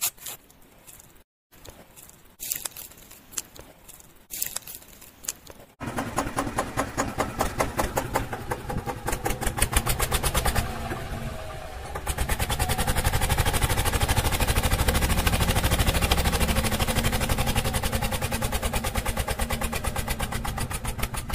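A few scissor snips, then about six seconds in a miniature model tractor's small engine starts up and runs with a rapid, even clatter and a low rumble, dipping briefly in the middle and then running steadily louder.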